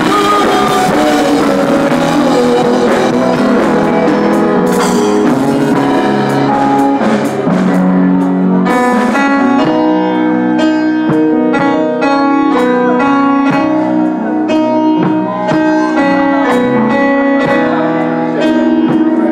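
Live band playing through a PA: electric guitar, keyboard and drums.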